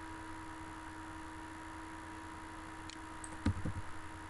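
A steady faint electrical hum, then a few quick computer-mouse clicks about three seconds in, the loudest a dull knock near the end.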